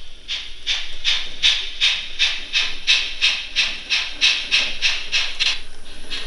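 Sound decoder of a Minitrix N-scale class 01 150 steam locomotive playing steady steam chuffing through its small speaker while the model runs, about three hissing chuffs a second.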